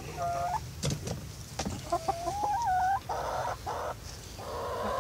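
Barred Rock and Australorp hens calling: a short call, then a drawn-out wavering call, then a run of short raspy squawks, with a couple of sharp taps about a second in.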